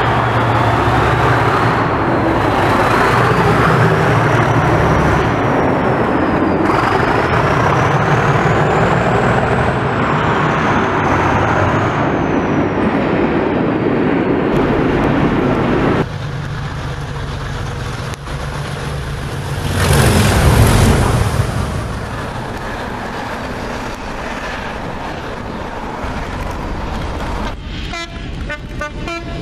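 Class 37 diesel locomotive with its English Electric V12 engine accelerating hard, its turbocharger whistle rising and falling over the throb of the engine. About 16 seconds in it cuts to a quieter diesel freight locomotive working along the line with its wagons, with a brief louder swell about 20 seconds in.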